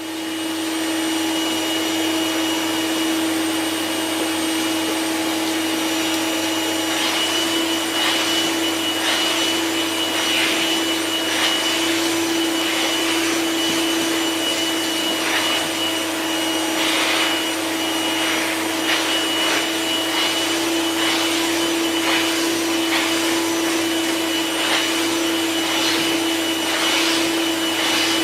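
Vacuum cleaner running steadily with a constant hum and whine while it is used on a dog's coat. From about seven seconds in, its airflow swells into irregular hisses, roughly once a second, as the nozzle is worked over the fur.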